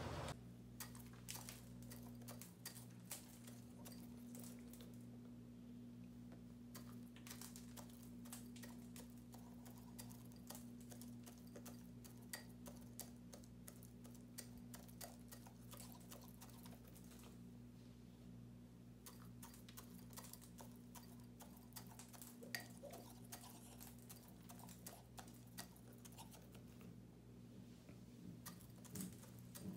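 Rooster pecking feed from a small glass jar, its beak clicking faintly and irregularly on the grain and glass, sometimes several pecks in quick succession.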